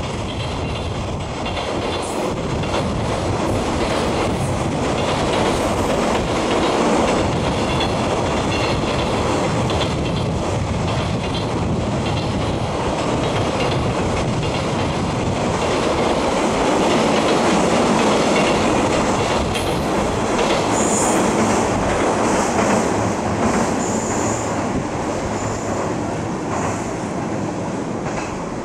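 A freight train's container flat wagons roll past over a girder bridge: a steady rumble and clatter of wheels on the rails. A few brief high wheel squeals come about three quarters of the way through.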